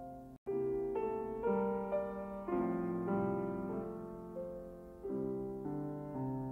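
Slow piano music, one note or chord after another, each fading before the next. The sound cuts out completely for a split second about half a second in, then the piano resumes.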